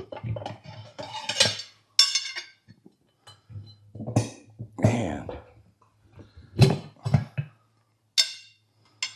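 Steel tire bar clanking and scraping against the steel rim of a riding-mower wheel as the tire bead is pried off on a manual tire changer: a series of sharp metallic clinks, some ringing briefly.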